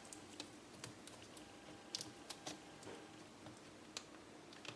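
Faint, irregular small clicks and taps of fingers working a laptop LCD's ribbon cable connector into the socket on the back of a new screen panel.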